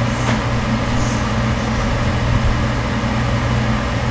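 Steady electric fan running: a constant low hum under an even rush of air.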